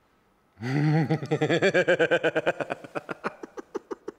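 A man laughing: a burst of rapid, pitched pulses of voice that starts about half a second in and gradually fades.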